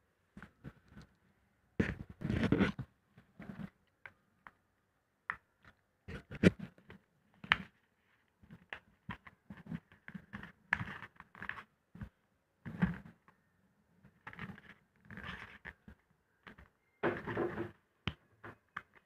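Sheet of paper being handled and folded by hand: irregular rustles and crinkles with small taps, the loudest a few seconds apart.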